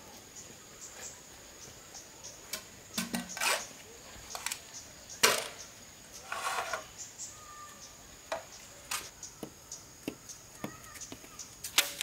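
Scattered sharp knocks and short rustles of handwork, the loudest a single sharp knock about five seconds in, over a steady faint high whine.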